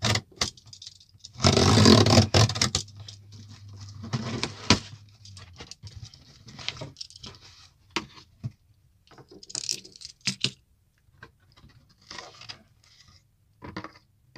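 Hands unboxing a microphone: the cardboard box and packaging are handled, scraped and tapped, giving scattered clicks, patters and short rustles. About a second and a half in comes the loudest part, a burst of noise lasting about a second.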